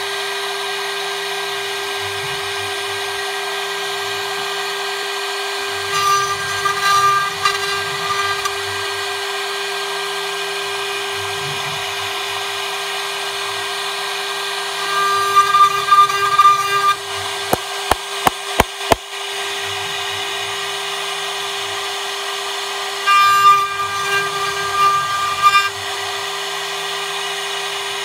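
A 1.5 kW CNC router spindle runs with a steady high whine as its V-bit carves a scrolled pattern into a wooden drawer front. The cutting noise grows louder three times, and a quick run of sharp clicks comes about two-thirds of the way through.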